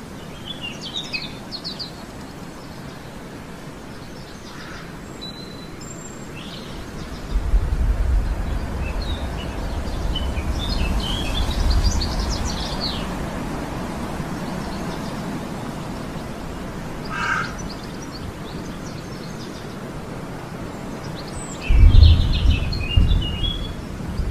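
Small birds chirping in short scattered phrases over a steady outdoor hiss. Twice, about seven seconds in and again near the end, a loud low rumble swells up and is the loudest sound.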